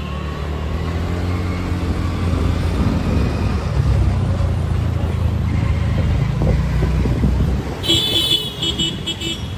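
Steady low rumble of traffic and engine while riding through city streets. Near the end a vehicle horn beeps, once long and then several short times.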